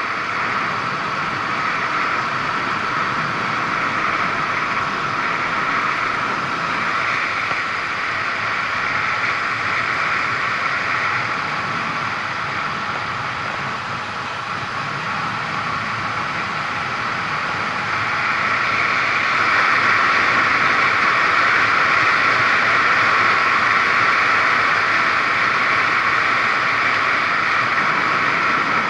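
Steady rushing wind and road noise on a moving camera while riding along a road, a little louder about two-thirds of the way through.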